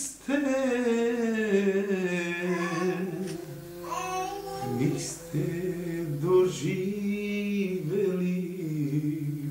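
A singer holding long, wavering notes of a slow Serbian folk (narodna) song, with no clear words.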